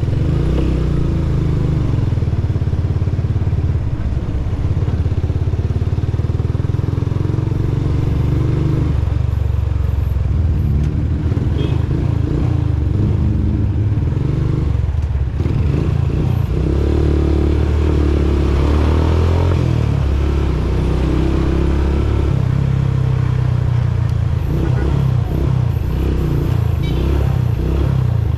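Motorcycle engine running during a ride, a steady low drone.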